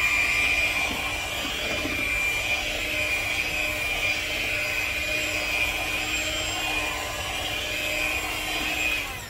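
Electric hand mixer running steadily while beating a cream cheese pie filling in a bowl, then switching off near the end.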